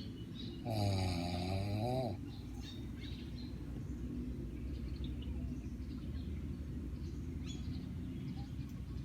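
A woman snoring loudly in her sleep: one long, pitched snore about a second in, its pitch dipping and rising again, then steady low, rough snoring breaths.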